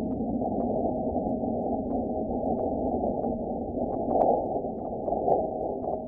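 InSight lander's seismometer recording of a meteor impact on Mars, sped up about 100 times so the ground shaking becomes audible. It plays as a steady rumbling hiss with scattered sharp clicks and swells louder about four seconds in.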